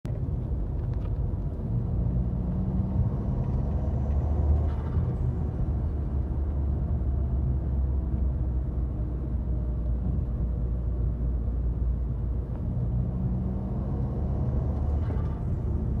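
Citroën C4 Lounge THP's turbocharged 1.6 four-cylinder engine pulling, heard from inside the cabin, its pitch rising as it accelerates twice. Each time the throttle closes, about five seconds in and again near the end, the turbo flutters with a short chattering puff. The intake is stock except that the paper air filter element has been removed.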